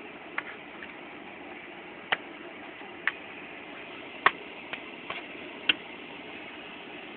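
Kittens playing in a plastic laundry basket: about seven short, light clicks and taps, spread unevenly, over a steady hiss.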